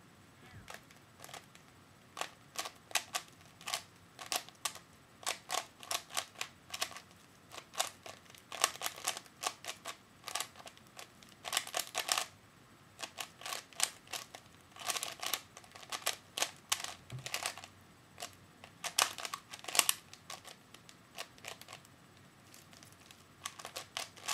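3x3 Rubik's cube being turned fast in a timed speedsolve: quick runs of plastic clicks from the layer turns, with short pauses between runs.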